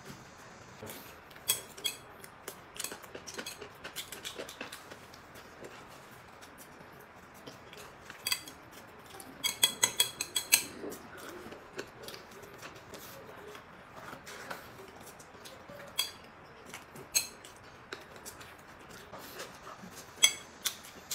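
Chopsticks clicking against porcelain plates and a dish. The clicks are sharp and scattered, with a quick run of about ten clicks a little before halfway.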